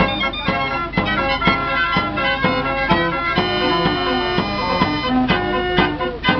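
Fairground organ playing a tune, its pipes sounding many notes over a steady beat of about two a second, with a long held chord in the middle.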